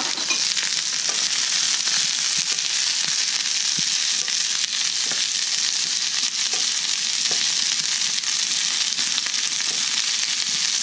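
Sliced bitter gourd sizzling steadily in hot olive oil in a frying pan, with a few faint ticks. The gourd is being softened in the oil before the eggs are added.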